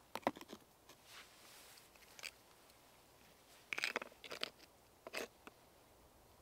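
Flat stone pieces being set down and shifted on a rock: a few short stone-on-stone clacks and scrapes, the busiest cluster a little after the middle.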